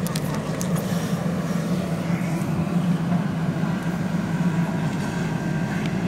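JCB backhoe loader's diesel engine running steadily under load while the backhoe digs a trench, with a few sharp clicks in the first second.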